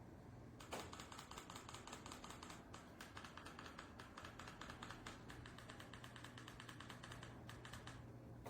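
Faint, rapid, irregular clicking like typing on keys. It starts about a second in and stops near the end, over a faint steady hum.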